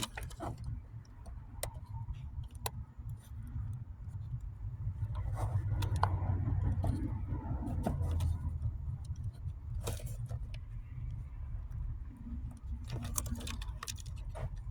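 Scattered small clicks and light metallic rattles of hand tools, wire and small connector parts being handled, over a steady low rumble.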